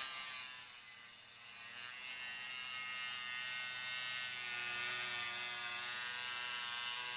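Proxxon FBS 240/E mini drill spinning a small cutting disc at high speed as it cuts into a piece of plastic: a steady high-pitched whine over a buzz of motor tones.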